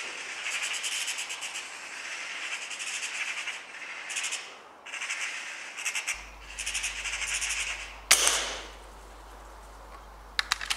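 Magpie chattering in rapid rattling bursts, then a single sharp gunshot about eight seconds in, the loudest sound. A few quick clicks follow near the end.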